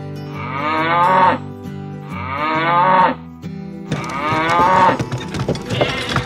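Cows mooing three times, each call about a second long, over background music.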